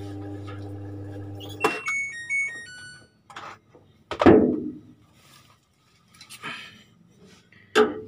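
LG top-loading washing machine's wash motor humming steadily without turning, the stalled-motor hum of a machine that will not spin. About two seconds in it is switched off with a click, and the control panel plays a short beeping tune. A loud knock follows about four seconds in.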